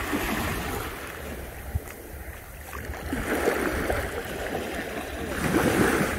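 Small waves washing up a flat sandy beach and swirling through the shallows, a rushing water noise that swells three times and is loudest near the end. Wind rumbles on the microphone underneath.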